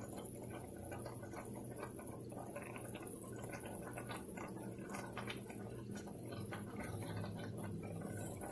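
Brown stew chicken simmering in a skillet: the dark sauce bubbles with a steady run of small, irregular pops and ticks.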